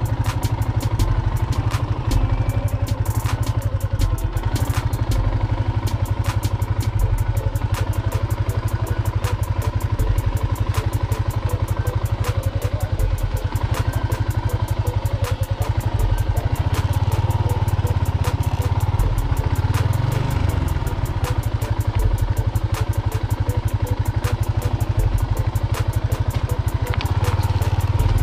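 Yamaha Sniper 150 underbone motorcycle's single-cylinder four-stroke engine running steadily while the bike rides over a loose, rocky dirt track, with frequent knocks and rattles from the stones.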